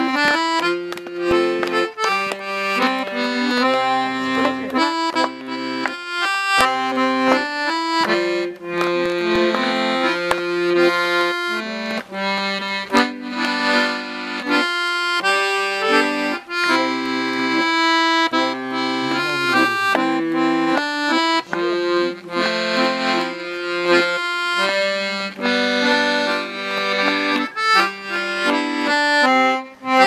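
Accordion playing a tune: a melody of quickly changing notes over held bass and chord notes, without a break.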